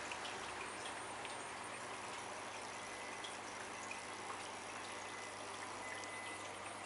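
Aquarium water circulation: a steady trickle of running water with a few faint scattered ticks.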